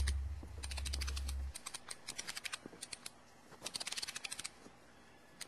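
Irregular bursts of quick, light clicks, several in a row, over a low hum that stops about a second and a half in.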